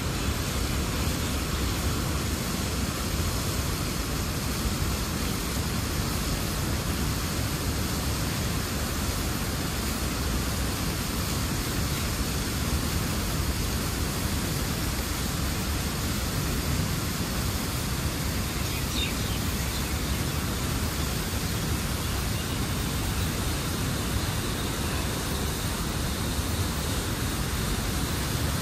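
Water rushing out through an open dam gate, a steady, unchanging noise.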